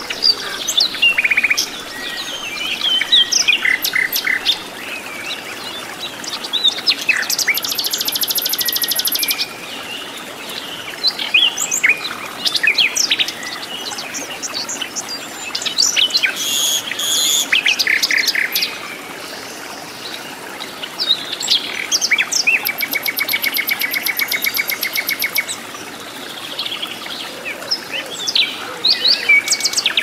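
Common nightingale singing: a varied run of short whistles and chirps broken by fast, rattling trills that each last a second or more.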